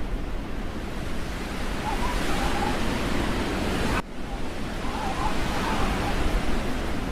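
Wind rushing across the microphone as a steady noise, broken by a sudden cut about four seconds in.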